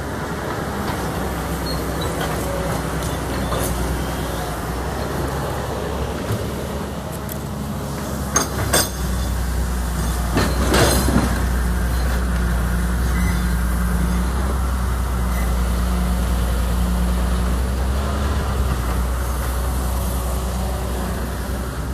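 Excavator's diesel engine running steadily while digging soil, with a few sharp clanks about halfway through.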